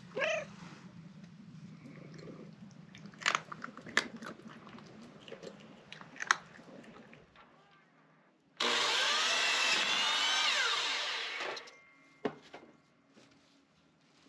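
A cat crunching dry kibble, with scattered sharp crunches. About nine seconds in, a DeWalt miter saw starts suddenly and runs for about three seconds, cutting a board, then dies away.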